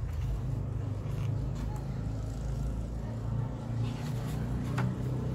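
Steady low rumble of motor traffic, with soft rustles and taps from the large glossy pages of a hardcover artbook being turned and handled, and one sharper tap near the end.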